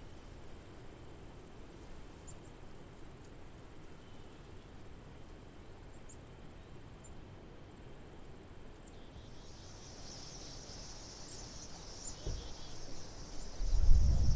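Quiet outdoor marsh ambience. About two-thirds through, a steady high-pitched insect chorus of chirring with small chirps rises, and near the end a loud low rumble takes over.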